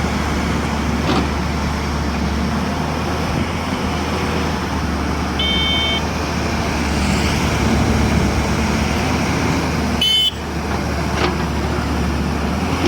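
JCB 205 excavator's diesel engine running steadily at work. A short, high horn-like toot sounds about halfway through, and another brief high tone comes around ten seconds in.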